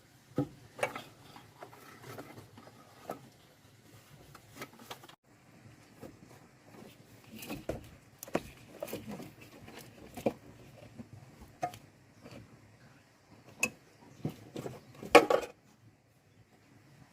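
Irregular light clinks and knocks of hard objects being handled and set down, with a louder clatter of several knocks about fifteen seconds in.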